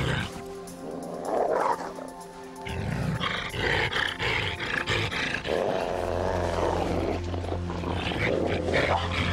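A wolf and a wolverine snarling in repeated outbursts as they fight, over background music with a low sustained drone.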